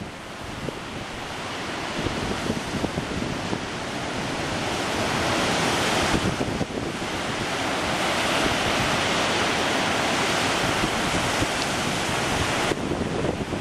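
Sea surf washing onto a sandy beach, a steady rush that swells over the first several seconds and thins abruptly near the end, with wind buffeting the microphone.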